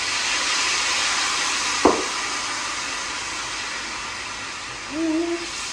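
Mutton frying in a hot karahi hisses and sizzles as the cup of water just poured in boils off in steam, the hiss slowly dying down. A single sharp knock about two seconds in.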